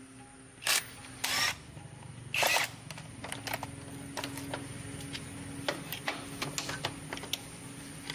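Handling noises from motorcycle repair work: three short, louder scraping or clattering sounds in the first three seconds, then a run of light clicks and taps over a faint steady hum.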